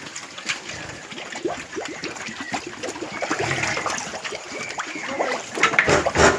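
Water splashing and trickling in irregular small splashes, with a louder burst of splashing near the end.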